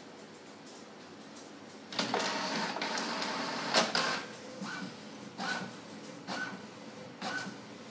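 HP Deskjet Ink Advantage 3548 inkjet printer printing its alignment page after a cartridge change. About two seconds in, a loud mechanical whirring starts and lasts about two seconds. It is followed by short, regular whirs a little under once a second as the print carriage passes back and forth.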